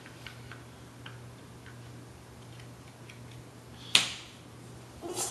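Jigsaw puzzle pieces being handled and set down, a scatter of light clicks and taps with one sharp, louder click about four seconds in.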